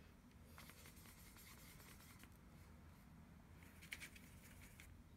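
Near silence, with faint scratches of a paintbrush working in a watercolor paint pan: a brief one about half a second in and a short cluster near four seconds.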